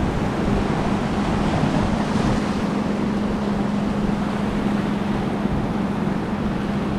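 Ocean surf washing and breaking over lava rocks, with wind buffeting the microphone and a steady low hum underneath.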